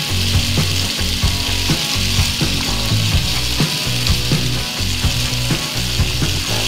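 Chopped tomatoes and garlic sizzling in oil in a nonstick frying pan, with a spatula scraping and tapping the pan again and again as they are stirred.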